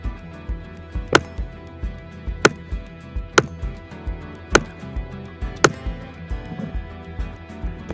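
Background music with a steady beat, cut through by five sharp AR-15 rifle shots at uneven intervals of about a second.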